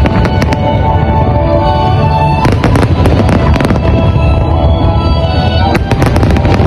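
Fireworks going off in clusters of sharp bangs and crackles: a few at the start, a longer run about two and a half seconds in, and another near the end. Loud music plays under them.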